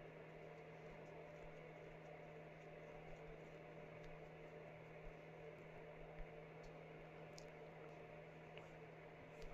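Near silence: a steady low electrical hum in the room, with a few faint clicks.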